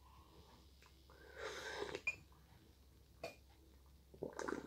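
A child sipping hot chocolate from a plastic ladle: one faint, breathy slurp lasting under a second, about a second and a half in, followed by a few light clicks and another short breathy sound near the end.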